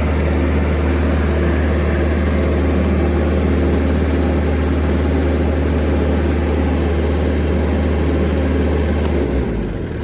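Sullair 185DPQ portable air compressor's 49 hp diesel engine running steadily with a deep drone, shut off about nine seconds in and winding down.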